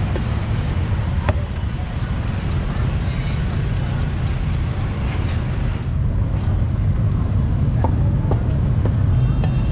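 Steady low rumble of street traffic, with a few separate sharp knocks of a cleaver chopping roast pork on a wooden chopping block.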